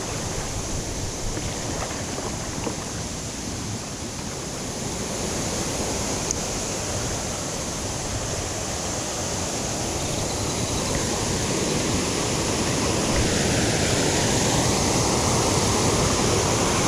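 Creek waterfall: a steady rush of falling water that grows gradually louder toward the end.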